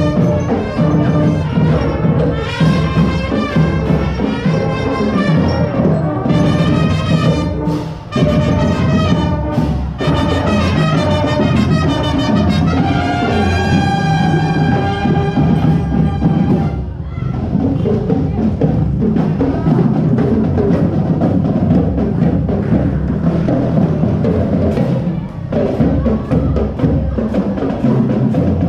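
Music with brass and percussion playing.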